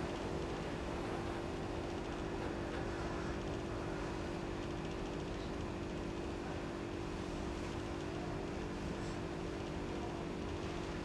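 Steady room hum: a constant low tone over a faint even hiss, with no distinct events.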